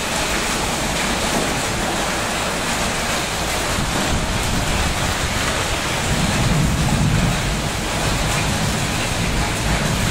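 Heavy rain pouring onto flooded pavement, with wind buffeting the microphone. A louder low rumble swells for a second or so past the middle.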